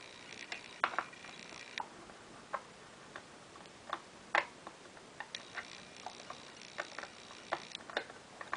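Irregular small clicks and taps of a screwdriver working against the metal and wooden reed blocks of an opened piano accordion, unevenly spaced with the loudest tap about four seconds in.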